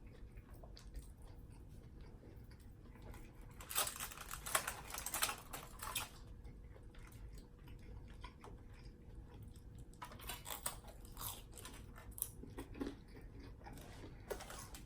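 A person chewing and biting food close to the microphone, with two louder spells of chewing about four seconds in and again about ten seconds in.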